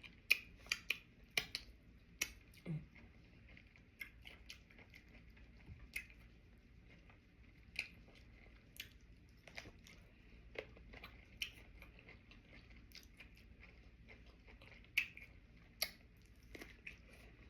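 Close-up chewing and biting of cucumber sushi boats with salmon: crisp crunches and wet mouth clicks, coming quickly in the first few seconds and then sparser.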